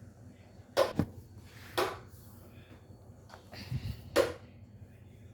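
Steady low hum of a running electric fan, broken by three short sharp knocks about a second, two seconds and four seconds in.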